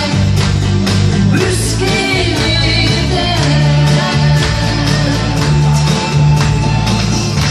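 Live band playing a rock-style song: a man singing into a microphone over electric guitar and a steady drum-kit beat.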